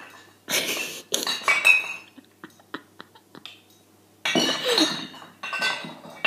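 Cooking clatter: metal pots, pans and utensils clinking and knocking, with a glass bottle among them. It comes in two bunches, about half a second in and again after about four seconds, with a few single clicks between.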